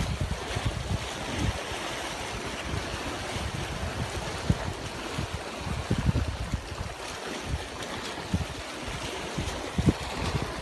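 Small sea waves washing and foaming over shoreline rocks, with wind buffeting the microphone in irregular low gusts.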